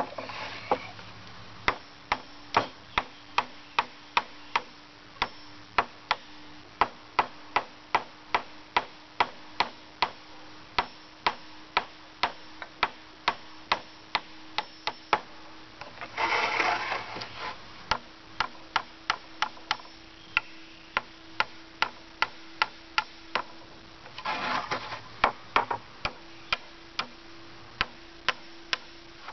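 Claw hammer driving nails into a wooden pallet board: steady, evenly paced blows at about two to three a second. The rhythm breaks twice, near the middle and later on, for about a second of rustling and scraping.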